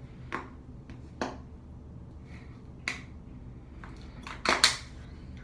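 Short, sharp mouth and throat sounds from a boy straining to swallow a tiny plastic water bottle held in his mouth: three brief clicks a second or more apart, then a louder double burst near the end.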